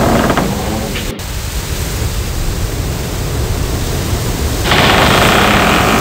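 Loud steady hiss of noise with no clear pitch, cutting out for an instant about a second in and growing louder and brighter near the end.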